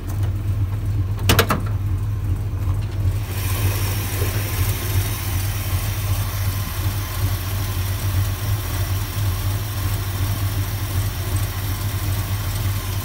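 A mild-cammed 383 big-block V8 idling steadily, with one sharp click about a second in. From about three seconds in a hiss and whir join the idle, heard with the hood open.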